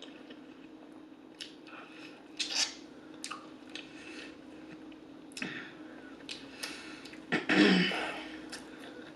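A person chewing crispy fried chicken with scattered crunches and wet mouth clicks. The loudest burst comes about seven and a half seconds in.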